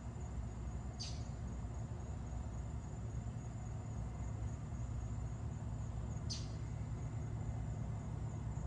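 Crickets trilling steadily at a high pitch, over a low steady hum. A bird gives two short, downward-sweeping chirps: one about a second in and one past six seconds.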